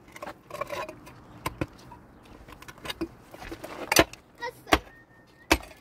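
Sharp knocks and clinks of hard objects striking, about half a dozen at irregular intervals, the loudest about four seconds in.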